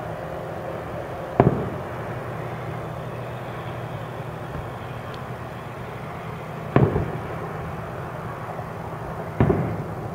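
Aerial firework shells bursting: three sharp booms, about a second and a half, seven and nine and a half seconds in, each fading off briefly.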